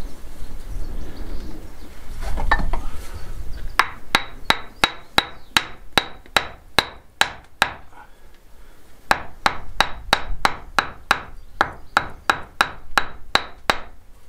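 A hammer tapping small stones into the lime-mortar joints of a rubble stone wall. Two runs of quick, sharp taps, about three a second, each with a short light ring, with a pause of about a second between the runs. Before the tapping there is a faint scraping of stone.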